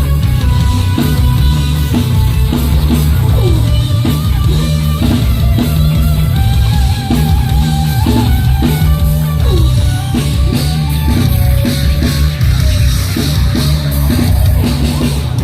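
A rock band playing live at high volume: drum kit keeping a steady beat under guitars and a heavy bass, with no singing.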